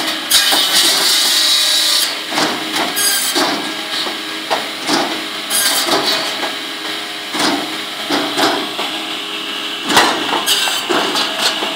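GROWI firewood circular saw running under load, its blade cutting through wood several times with a harsh high-pitched rasp. Cut chunks of firewood knock and clatter on the machine and the conveyor belt throughout.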